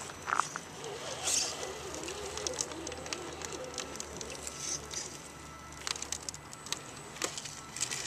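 Axial SCX10 scale RC rock crawler picking its way over rocks and dry leaves, its tyres giving scattered crunches and clicks, while birds call in the background.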